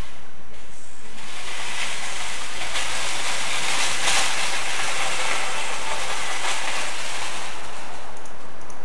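A loud, rushing hiss that swells from about a second in, is loudest around four seconds and fades toward the end.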